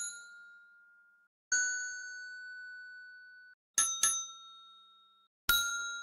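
AI-generated desk bell dings played back in turn. The ringing of one ding fades out in the first second, another single ding rings out and is cut off abruptly at the end of its clip, a quick double ding follows near the middle, and a last single ding rings near the end.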